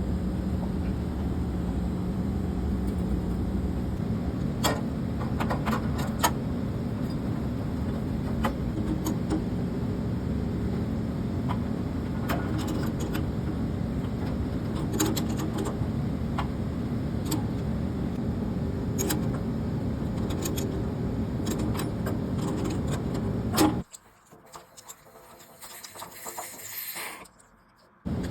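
Scattered sharp metallic clinks and taps of tools on plumbing fittings over a steady low mechanical hum. The hum cuts out abruptly near the end, and a brief rising hiss follows.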